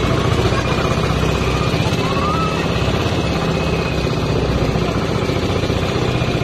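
Small wooden boat's engine running steadily under way, with a fast, even chug.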